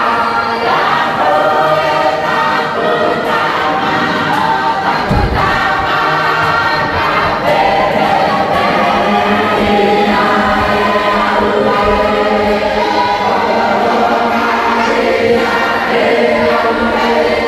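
Mixed choir of men and women singing a traditional Cook Islands Christmas hymn, many voices together.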